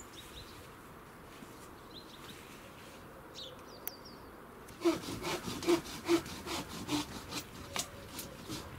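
Regular back-and-forth strokes of a hand saw cutting wood, about two and a half strokes a second, starting a little past the middle and fading near the end. Before that, faint chirps of sparrows.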